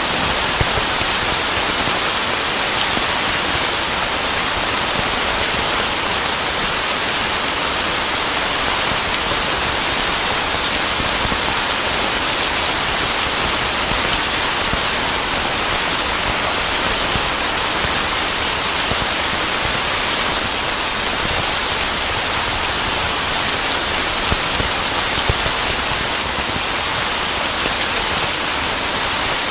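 Steady heavy rain: a dense, even hiss of drops falling on a surface, with no thunder.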